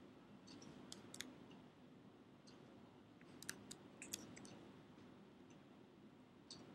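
Faint, scattered clicks of a computer mouse and keyboard over quiet room tone, about ten in all, with a quick run of them around the middle.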